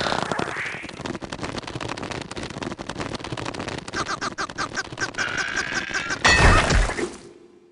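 Cartoon sound effects: a fast crackling rattle of clicks under a cartoon larva's squeaky, straining chatter, then a loud thump about six seconds in as it springs free.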